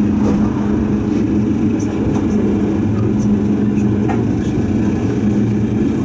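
Tram running along the street, heard from inside the cab: a steady low hum over the rumble of wheels on rails, with a few faint ticks.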